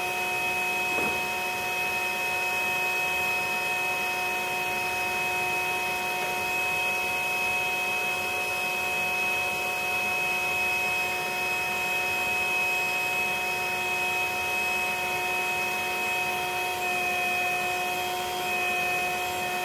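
Bee vacuum running steadily: a motor whine with several steady tones over a rush of air.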